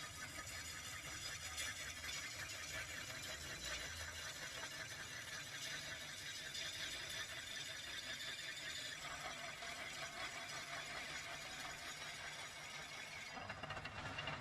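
Steel being ground on an abrasive: a steady, high-pitched scraping hiss with a faint whine, changing in tone about nine seconds in.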